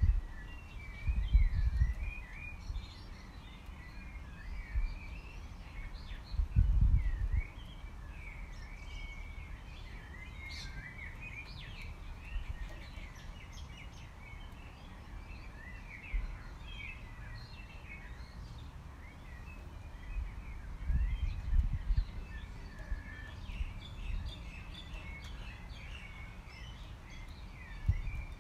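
Many small birds chirping and singing continuously, a dense overlapping chorus of quick high calls, over steady outdoor background noise. A few short low rumbles break in, about seven seconds in, around twenty seconds in and near the end.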